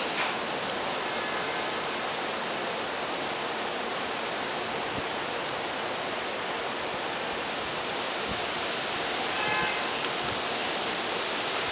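Steady, even hiss of outdoor background noise with no clatter. About nine and a half seconds in comes a brief, faint high tone.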